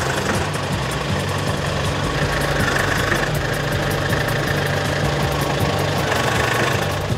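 Diesel engine of a Fendt 514 tractor idling steadily.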